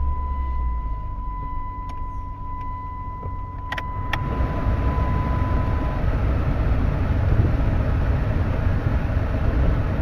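1998 Jeep Grand Cherokee idling as its air conditioning is switched on: two sharp clicks about four seconds in, then the blower fan rushes air on high. A steady electronic beep tone sounds over the first six seconds.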